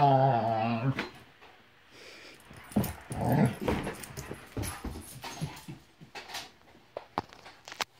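A dog gives a wavering, growling grumble for about the first second. Then she scratches and thrashes at her cushioned dog bed, with scuffs, thumps and sharp claw clicks as she digs and jumps about.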